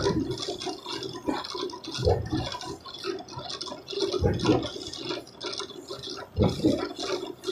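Corrugated-board pasting machine running, its rollers whirring and scraping steadily, with a dull thump about every two seconds.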